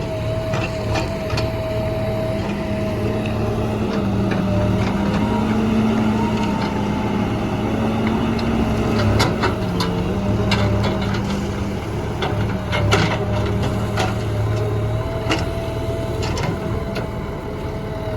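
JCB backhoe loader's diesel engine running steadily under working load, its pitch rising and falling slightly, with a steady higher tone over it. Scattered sharp knocks and clatter of gravel against the bucket, loudest around nine and thirteen seconds in.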